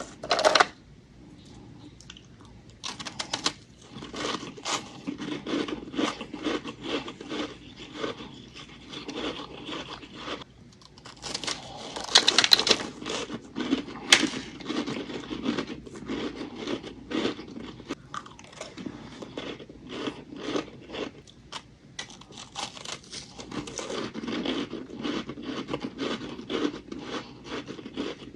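Thin chunks of ice bitten into close to the microphone: a rapid, uneven run of crisp crunches, with a loud burst of crunching about twelve seconds in and a sharp crack about two seconds after it.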